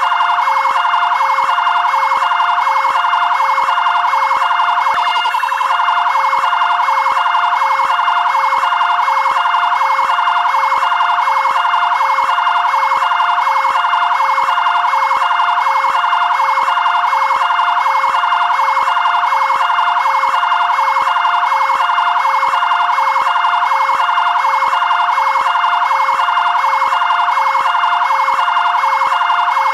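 Two-tone (bitonal) electronic siren of a fire brigade area command vehicle. It switches back and forth between a higher and a lower note in a fast, even rhythm and stays steady throughout.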